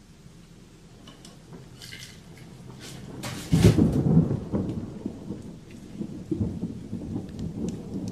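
Thunder: some crackling, then a sudden loud clap about three and a half seconds in, followed by a low rumble that rolls on in waves and dies away near the end.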